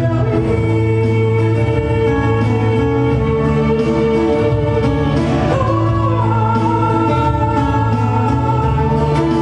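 Music from a nasyid song: sustained chords under a long held melody note that begins about halfway through.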